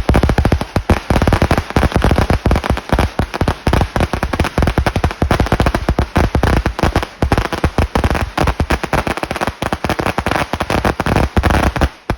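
Firecrackers going off in a long, dense run of sharp cracks, many per second, with a brief lull at the very end.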